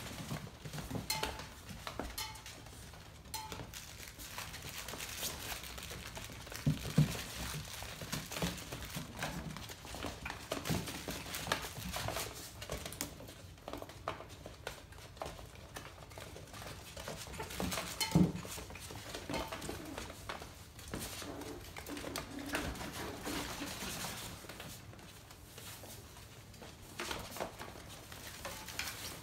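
Five-week-old labradoodle puppies playing: an uneven run of light clicks, clatter and knocks from paws on a hard floor, toys being pushed about and metal cans hanging on cords being bumped. Two louder knocks come about seven and eighteen seconds in.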